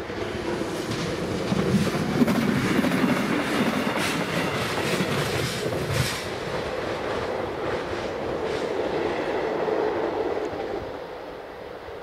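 Rumbling mechanical noise that swells, holds for several seconds with a run of sharp clicks in the middle, and fades near the end: something passing by.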